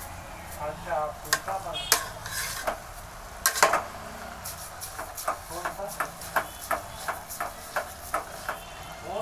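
A spoon or ladle stirring carrots and sugar in a large cooking pot, with irregular scrapes and clinks against the pot, the sharpest about two seconds in and again a little past three and a half seconds. This is the gajar ka halwa mix being worked after the sugar has gone in.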